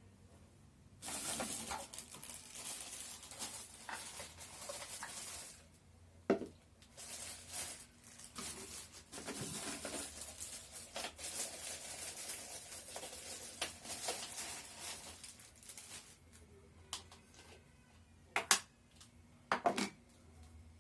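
Plastic packaging rustling and crinkling in long stretches as the parts of a baby bottle sterilizer are unwrapped, followed by a few sharp knocks of hard plastic parts near the end.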